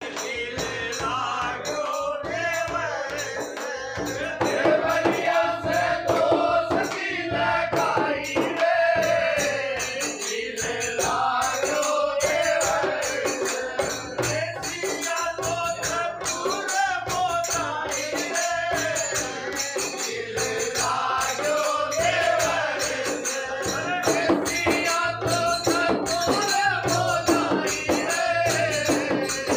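Men singing a Rajasthani dhamal folk song to a steady drum beat from a chang frame drum and a two-headed barrel drum, with sharp high clicks keeping time.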